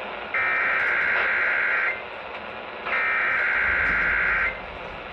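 Emergency Alert System SAME header: two bursts of screeching digital data tones, each about a second and a half long, a second apart, over radio hiss. They signal the start of an EAS test. A low rumble runs underneath in the last second or so.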